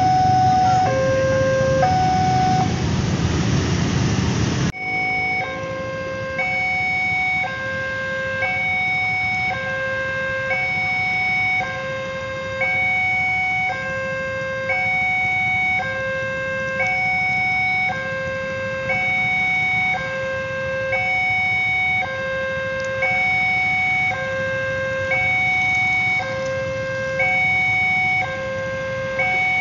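Railway level-crossing warning alarm sounding, a repeating electronic two-tone signal that alternates between a lower and a higher tone about every three quarters of a second: the crossing is closed for a train. For the first five seconds the noise of a passing train runs under it, ending with an abrupt cut.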